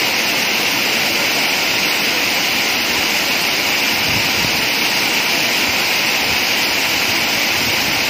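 Water pouring steadily down a stepped stone weir, a small waterfall's constant rushing.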